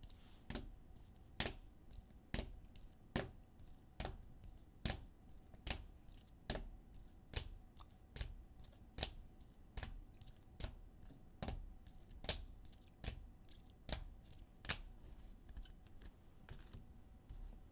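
Sports trading cards being set down one after another, a light snap or tap slightly more than once a second, about twenty in all, the last few fainter.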